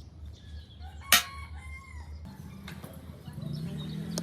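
A single sharp knock about a second in, followed by a rooster crowing in the background. A low hum builds near the end.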